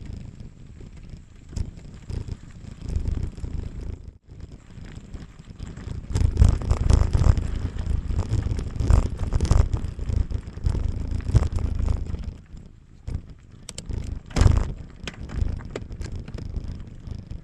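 Mountain bike rolling over a rough, stony forest road, its tyres crunching and the bike rattling and knocking over the bumps, with wind rumbling on the microphone. One hard jolt stands out a little after the halfway point.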